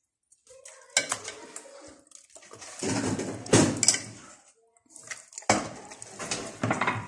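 Hands working a raw whole chicken in wet herb-and-spice marinade inside an enamel basin: irregular wet squelching and slapping of the meat, with several sharp knocks of the bird and hands against the bowl.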